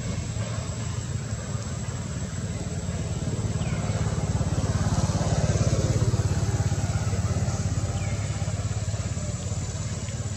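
A motor vehicle engine running steadily, growing louder in the middle as it passes by and then fading back, with two short high chirps over it.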